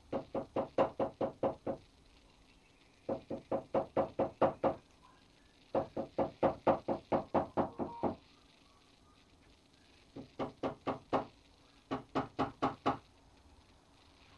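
Mallet tapping along the edge of a veg-tanned kangaroo leather panel laid on a wooden workbench: five quick runs of even knocks, about six a second, with short pauses between the runs.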